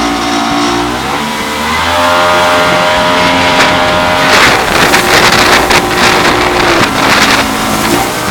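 Jet boat engine running hard, its pitch climbing about a second in and then holding steady. From about halfway, a loud rushing, crackling noise covers it for a few seconds as the boat runs up a shallow, narrow channel, and the engine note picks up again near the end.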